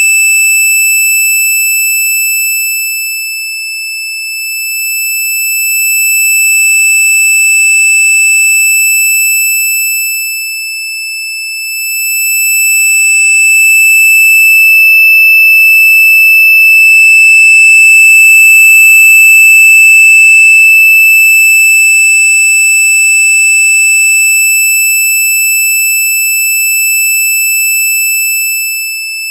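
Loud, steady, high-pitched electronic tone with fainter higher tones above it, held without a break; its loudness sags and swells slowly a few times.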